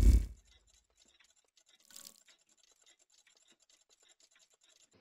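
Animated-logo sound effects: a deep boom right at the start, then faint rapid crackling with a brief swell about two seconds in.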